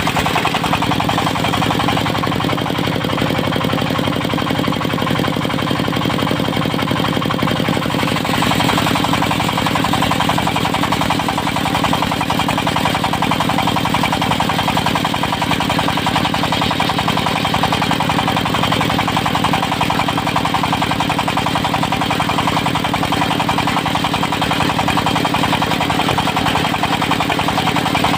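Diesel engine driving a portable circular sawmill, running steadily with a fast rapping beat. The sound shifts slightly about eight seconds in.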